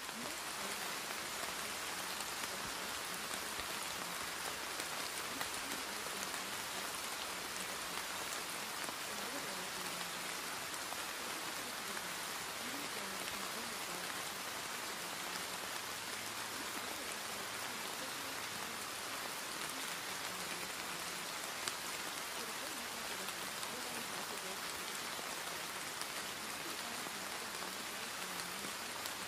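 Steady recorded rain, an even hiss of falling drops at a constant level. It serves as the masking track of a subliminal affirmation recording.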